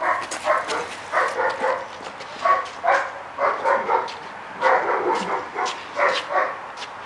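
A hound barking over and over, short sharp barks coming about twice a second.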